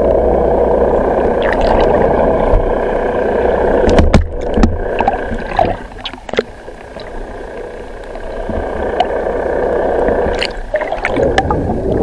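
Water rushing and gurgling against an underwater camera's housing as it moves through the sea. The sound is dense and steady, drops away for a few seconds in the middle, and has a cluster of sharp knocks and clicks about four to six seconds in.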